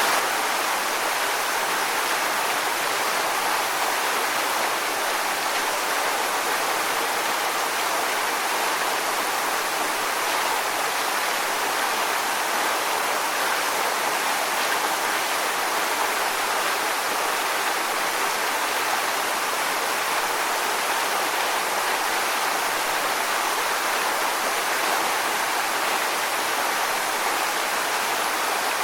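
Waterfall: water falling and rushing over rocks in a steady, unbroken hiss.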